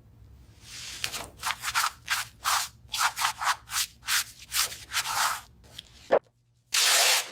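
Hand sanding of metal bodywork, quick back-and-forth rubbing strokes at about three a second. A short knock follows, then a half-second burst of hiss near the end.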